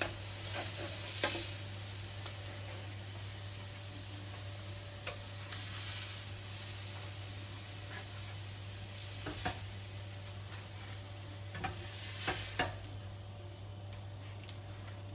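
Steady sizzle of chicken burgers and leftover oil in hot pans on a gas stove, with a few light clicks and knocks scattered through, the loudest near the end, as burgers are lifted off and set on a plastic cutting board.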